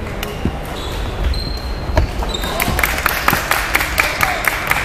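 Badminton play in a large sports hall: sharp racket hits on the shuttlecock and shoes squeaking on the wooden court floor, with the clatter of play on other courts. The hits come thicker and louder from about halfway through.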